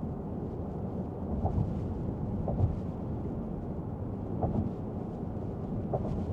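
Steady low rumble of a vehicle driving, heard from inside the cabin, with a few short bumps.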